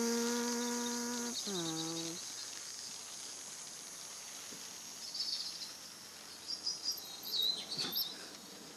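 A held low pitched tone slides down and cuts off about two seconds in. After it comes quiet outdoor ambience with a few faint high bird chirps.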